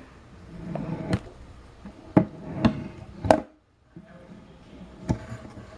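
A handful of separate sharp knocks and clicks as a toy replica musket is handled, about five in all, spaced irregularly.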